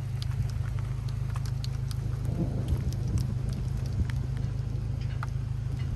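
Rain falling, heard through an open car window: scattered sharp raindrop ticks over an even wash, with a steady low rumble underneath.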